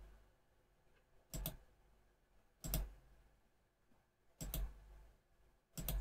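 Computer mouse button clicking four times, about one every second and a half, each click a quick press-and-release tick.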